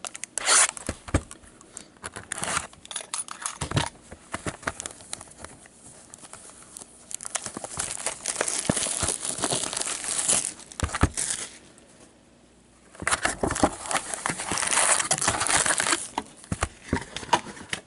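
Plastic shrink wrap being torn off a cardboard hockey card box and crumpled in the hand: scattered crackles and taps, then two long spells of loud crinkling, with a short lull between them about two-thirds of the way through.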